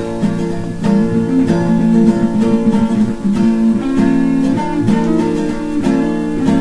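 Guitar music: strummed chords in a steady rhythm.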